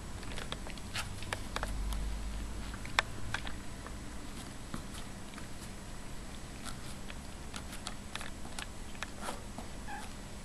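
Ragdoll cat and kittens moving about in a box, making scattered light scratches and clicks, with one sharp tap about three seconds in.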